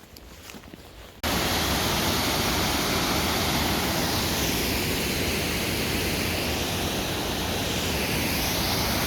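Faint ticks, then about a second in a loud, steady rushing noise cuts in suddenly and holds without change.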